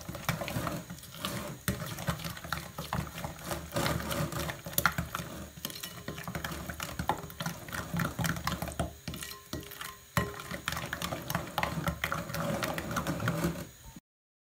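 Thick cake batter being beaten fast by hand in a glass mixing bowl: the utensil scrapes and taps against the glass in a quick, steady run of clicks. It stops abruptly near the end.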